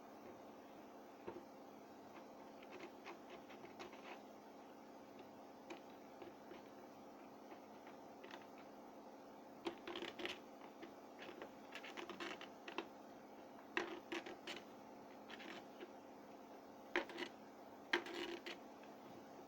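Scattered small clicks, taps and scrapes of hard objects being handled, sparse at first and more frequent from about halfway, over a steady low hum.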